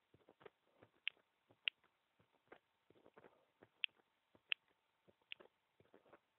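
Heartbeat picked up by a microphone pressed against a bare chest: faint low thumps with sharp clicks, about one or two a second and not evenly spaced.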